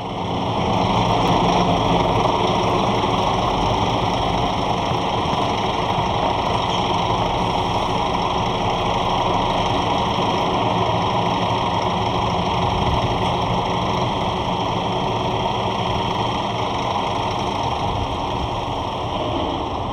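Heavy lorry's diesel engine idling steadily.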